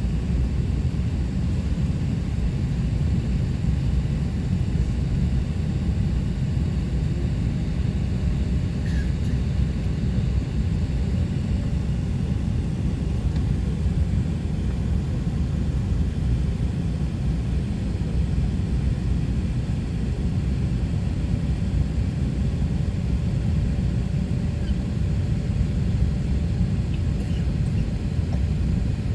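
Steady low rumble of an Airbus A380-800 heard inside the cabin, its engines and airframe holding an even level with a faint steady hum above the rumble.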